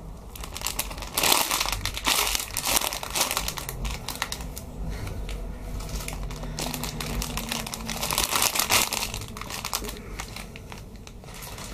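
Clear plastic bags around squishy toys crinkling as they are handled, in crackly rustles that are loudest about a second in and again near the end.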